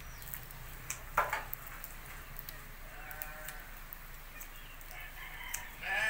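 Hand scissors snipping through thick sheep wool in scattered light clicks. A short crowing call comes about halfway, and a louder animal call with falling pitch starts right at the end.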